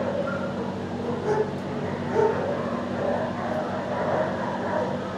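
Dogs in shelter kennels barking and yipping over a steady low hum.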